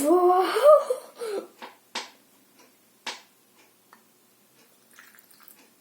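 A girl's drawn-out, rising 'Wow!', followed by a few light, sharp clicks and knocks from handling the slime kit's containers.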